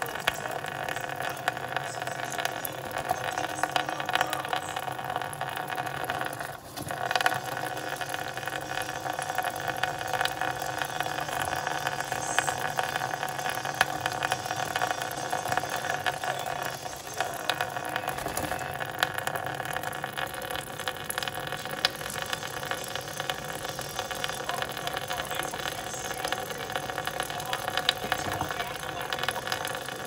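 Tap water pouring steadily into a stainless steel sink and splashing on a plastic cutting board as a conure bathes in the stream.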